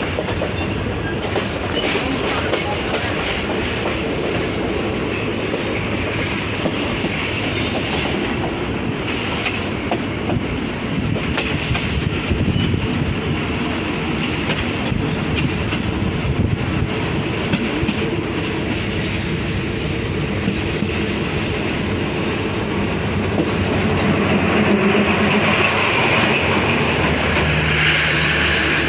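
Passenger train running along the track, its wheels clattering over the rails with a steady rumble, somewhat louder in the last few seconds.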